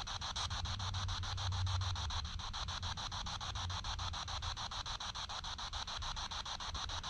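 SB7 spirit box sweeping through radio stations: a steady hiss of static chopped into rapid, even pulses about ten times a second.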